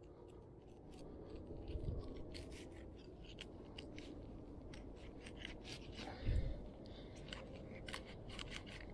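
Fillet knife slicing a fillet off a small pinfish on a wooden board: faint scraping and many small crunching clicks as the blade works through the fish. A dull bump about six seconds in.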